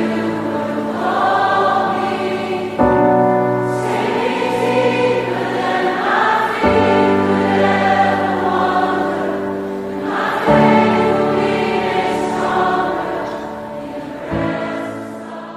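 Background choral music: a choir singing sustained chords that change about every four seconds, growing quieter near the end.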